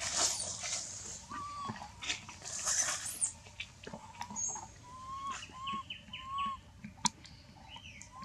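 Short arched whistled calls, one at a time and repeated several times in the second half, with a quick run of higher chirps among them, over bursts of rustling and a single sharp click about seven seconds in.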